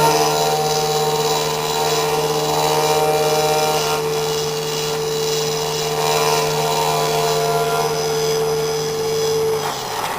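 Small CNC engraving machine running: a steady spindle whine with the pitch of the axis motors rising and falling as the cutter moves. Near the end the spindle winds down and the sound falls away.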